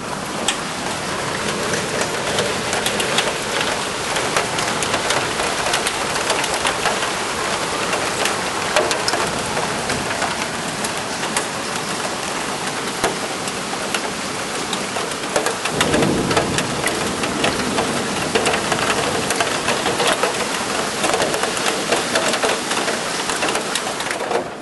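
Heavy rain in a thunderstorm beating on the window glass and sill: a steady, loud hiss packed with sharp drop impacts. A brief low rumble swells about two-thirds of the way in.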